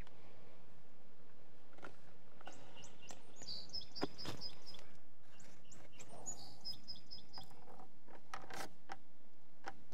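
Light scrapes and taps of a putty knife spreading a thin coat of Bondo body filler, while a small bird chirps in two quick runs of rapid high notes in the middle.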